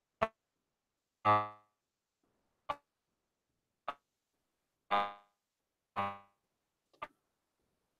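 Sparse piano-like keyboard notes, roughly one a second, each struck once and fading quickly. Some notes are short and thin, others fuller and ringing a little longer.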